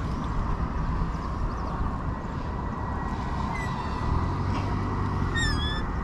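Steady outdoor background noise with a low rumble. A short, high chirping call sounds faintly about three and a half seconds in, and again more strongly near the end.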